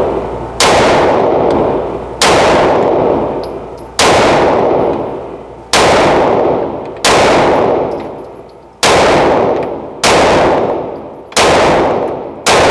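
Pistol fired in slow, single aimed shots, nine in all, about one every one and a half seconds. Each sharp crack rings on in a long echo that fades before the next shot, as in an indoor shooting range.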